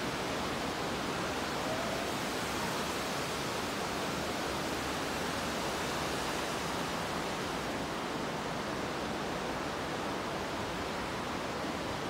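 Steady rushing of falling water from an indoor waterfall, an even hiss with no breaks.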